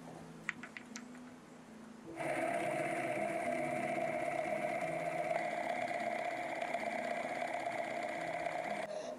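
Pantograph's small milling spindle running with an end mill cutting a brass watch barrel bridge: a steady machine whine that starts about two seconds in and stops just before the end. Soft background music underneath.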